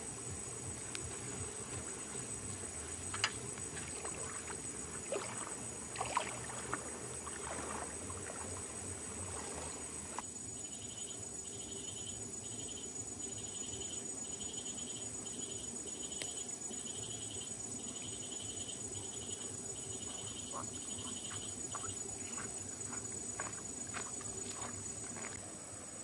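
Night insects calling steadily in a high continuous trill. From about ten seconds in, a second insect adds a pulsing chirp, repeated in short runs for roughly ten seconds. A few light clicks and taps come in the first few seconds.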